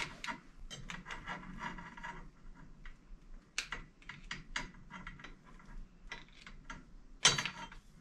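Small clicks and scrapes of push-on spade connectors being worked off and onto the metal lugs of an x-ray unit's power switch, with one louder clatter about seven seconds in.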